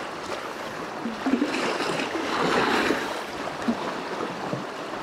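Small wind-driven waves lapping and washing over a rocky shoreline, with a louder surge of wash about two seconds in.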